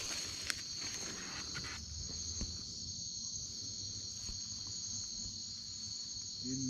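Crickets chirring in a steady, continuous night chorus, with a few faint knocks in the first couple of seconds.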